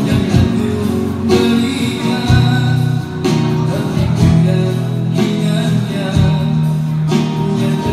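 A man singing live to his own acoustic guitar strumming, with long held notes, amplified through a PA speaker.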